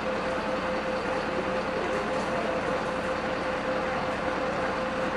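Steady drone of a running engine, with one constant humming tone throughout.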